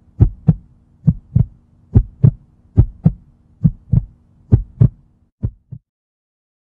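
Heartbeat sound effect: seven double thumps, lub-dub, a little under a second apart, the last pair fainter, over a faint steady hum that stops just before that last pair.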